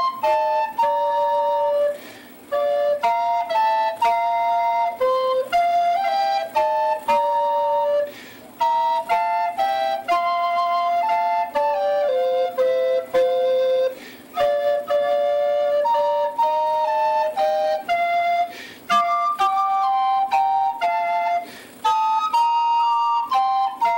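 Instrumental flute music: a single melodic line of held notes, with short breaks between phrases every few seconds.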